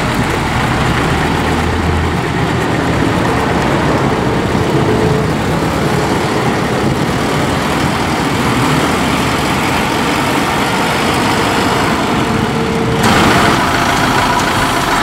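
Kubota M5-091 tractor's four-cylinder turbo diesel running steadily as the tractor is driven. About 13 seconds in, the sound changes abruptly to a different, closer engine sound.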